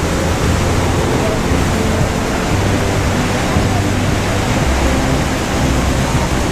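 Waterfall rushing steadily and loudly: the dense, even noise of a large volume of falling water.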